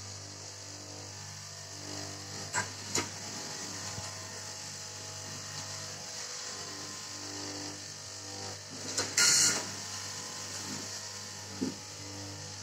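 Electric straight-knife cloth cutting machine running with a steady motor hum as its reciprocating blade cuts through a stacked lay of knit fabric. There are a few light clicks, and a louder brief rasp comes about nine seconds in.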